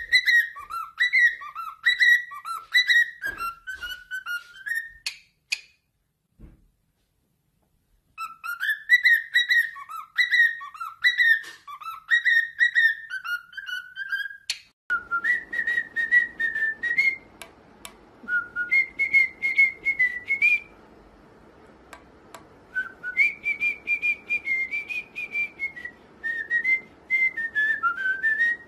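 Cockatiels whistling a tune: quick phrases of short rising-and-falling notes, broken by a pause of a few seconds. About halfway a second bird takes over with slower, longer whistled phrases over a faint steady hiss.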